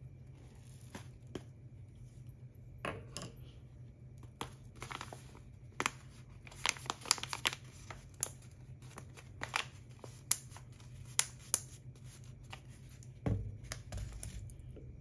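Paper coffee bag crinkling and crackling as its top is folded shut by hand, with many sharp crackles, then a soft thump near the end as the bag is set down on the table.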